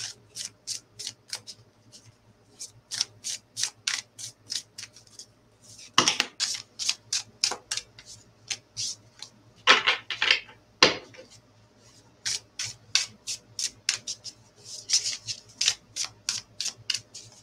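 A deck of oracle cards being shuffled by hand: a quick run of soft card clicks and slides, louder in a few flurries.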